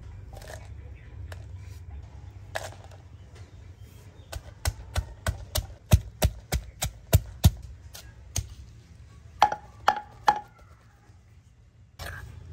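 Wooden pestle pounding garlic cloves and red chillies in a wooden mortar: a quick run of about a dozen strikes, roughly four a second, then three more after a pause.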